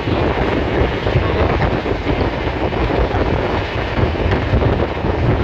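Moving passenger train heard from inside a coach: a steady, loud rumble of wheels running on the rails.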